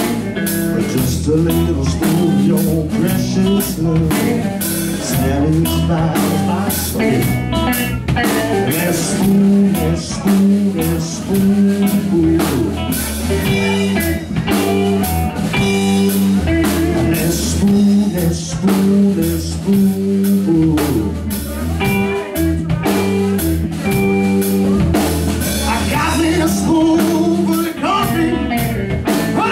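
Live blues-rock band playing: electric guitars and a drum kit keeping a steady beat.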